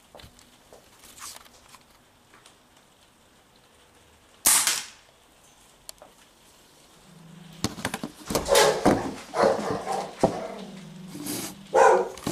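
A single sharp pellet-gun shot about four and a half seconds in, fading quickly. From about seven and a half seconds on comes a series of loud, short bursts of sound.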